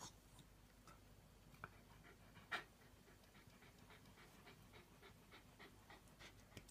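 Pregnant dog panting faintly and rapidly, about four breaths a second, as she prepares to give birth. A sharp click about two and a half seconds in.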